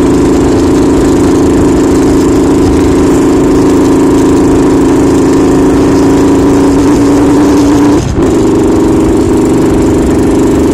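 Yamaha RX-King's two-stroke single-cylinder engine running steadily with a deep, rough 'ngorok' (snoring) note. About eight seconds in the revs sag and it briefly dips before catching and running steady again.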